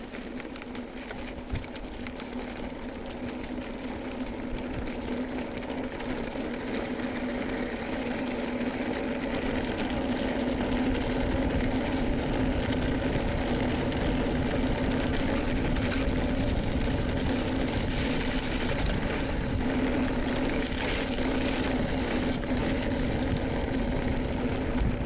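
Bicycle rolling over a cobblestone road: the tyres rumble and the bike rattles continuously over the stones, with a steady low hum, growing louder over the first ten seconds or so and then holding steady.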